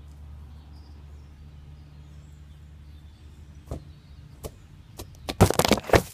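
A football kicked with a thud about three and a half seconds in, then near the end a burst of loud knocks and rattling as the ball strikes the camera and knocks it over onto the muddy ground. A low steady rumble runs underneath before the kick.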